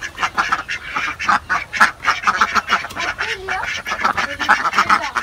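A flock of domestic ducks quacking, many quick calls overlapping one another.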